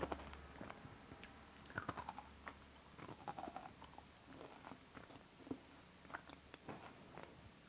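A person chewing crunchy food with the mouth closed: faint, irregular crunches, with a sharper one right at the start.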